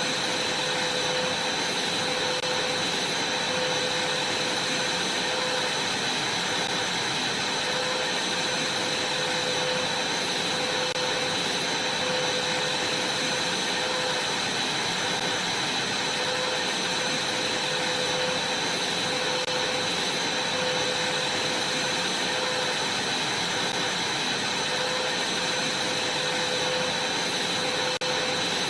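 Vacuum cleaner running steadily, a continuous rushing noise with a high, even whine.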